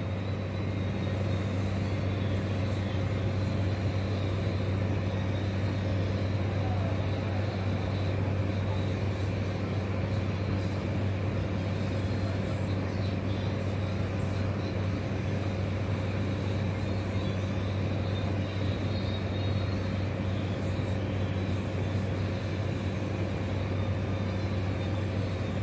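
A steady low hum with an even rushing noise over it and a faint high tone, unchanging throughout: a machine running continuously.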